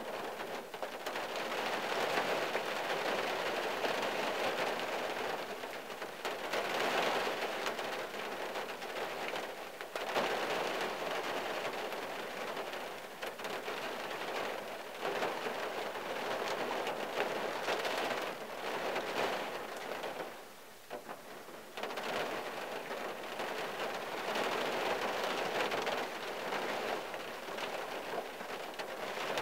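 Rain falling on a 1974 Valiant's windshield and body, heard from inside the car: a steady patter that swells heavier and eases off every few seconds, thinning briefly about two-thirds of the way through.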